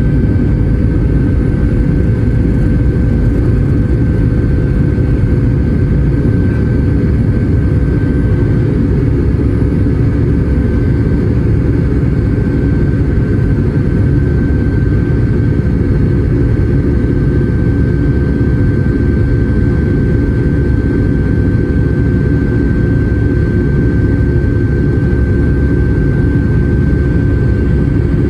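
Boeing 757-200 jet engines heard from inside the passenger cabin: a loud, steady rumbling drone with a constant high whine over it.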